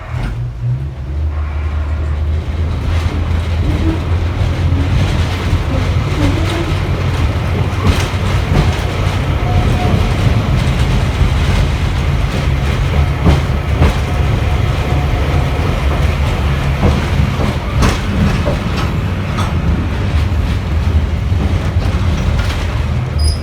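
Botchan Ressha, Iyo Railway's diesel-powered replica steam train, running on the tram tracks: a steady low engine drone with running noise, and scattered clicks and knocks from the wheels over the rail joints.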